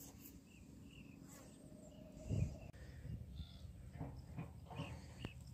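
Quiet rural outdoor ambience: faint scattered high chirps of birds or insects, with a soft low thump about two and a half seconds in and a few more near the end.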